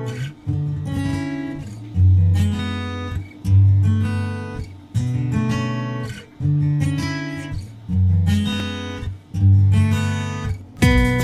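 Background music: acoustic guitar strumming chords, about one strum every second and a half, each left to ring and fade. Quicker, brighter strumming starts near the end.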